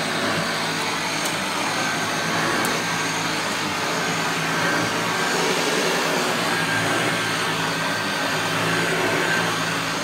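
Hoover Junior U1012 upright vacuum cleaner running steadily, a continuous motor hum and rush of air.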